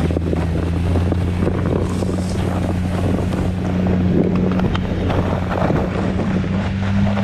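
Side-by-side utility vehicle's engine running steadily as it tows a snow tube. Under it are the rough hiss and scrape of the tube sliding over snow and wind buffeting the microphone.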